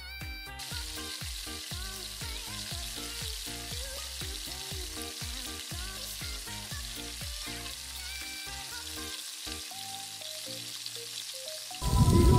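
Food sizzling on a barbecue grill with a steady hiss, under background music with a plain melody and bass line. Both cut off suddenly just before the end.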